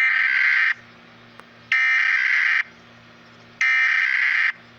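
United States Emergency Alert System SAME header: three bursts of digital data tones, each just under a second long with about a second between them.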